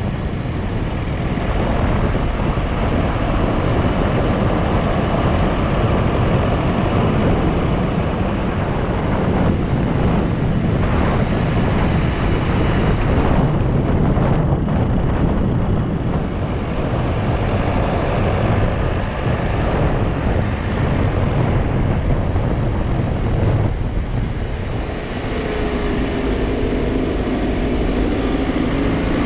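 Car driving along at steady speed, heard from inside the cabin: constant engine, tyre and wind noise. Near the end a steady pitched hum comes up through the noise.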